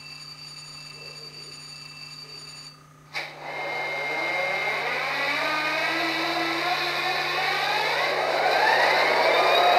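Tsunami 2 sound decoder in an Athearn Genesis GP39-2 model locomotive playing its diesel engine start-up through the model's small speaker: after a faint steady hum, a sharp click about three seconds in, then the engine sound builds, rising in pitch and growing louder.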